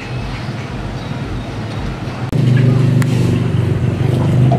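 Steady low hum of a motor vehicle engine running, jumping suddenly louder a little over two seconds in.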